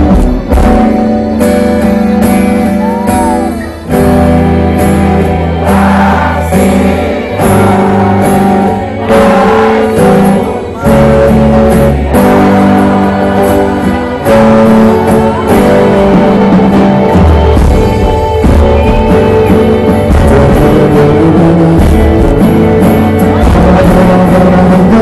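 Loud live band music from a stage sound system: a singer's voice over amplified guitar and a heavy low bass line.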